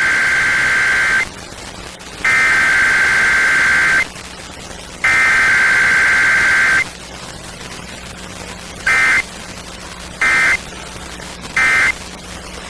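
Emergency Alert System SAME data tones: three long screeching digital header bursts, each just under two seconds and a second apart, followed by three short end-of-message bursts, with a steady radio hiss in the gaps.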